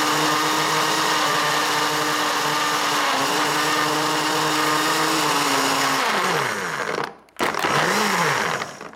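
Countertop blender motor running steadily as it churns a thick, water-free mix of banana, papaya, powdered milk and ice cubes. About six seconds in the motor winds down and stops, then it runs again in one short pulse that rises and falls before stopping near the end.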